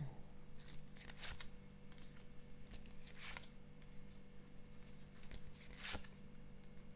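Faint rustles and light taps of fortune-telling cards being handled and laid down, three short sounds spread a couple of seconds apart, over a faint steady low hum.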